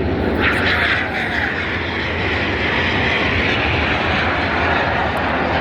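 Airplane engine noise from an aircraft flying by overhead, loud and steady, with a higher, hissing band of sound coming in about half a second in and holding.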